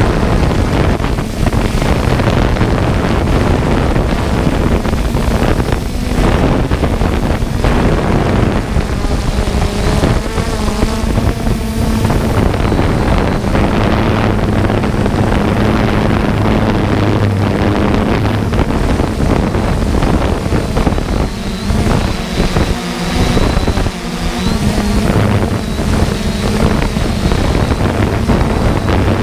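3DR Solo quadcopter's electric motors and propellers running steadily, heard from the camera on board, with small shifts in pitch and wind buffeting the microphone.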